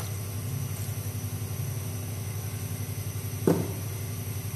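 A steady low mechanical hum with a fast pulsing beat, under onions in oil in a pot; about three and a half seconds in, a single knock of the stirring spoon against the pot.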